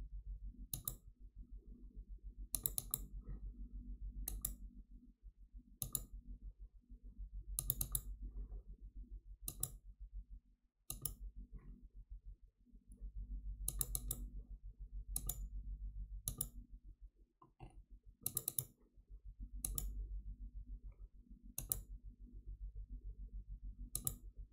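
Computer mouse button clicks, single and in quick pairs, about every second or two, over a low steady hum.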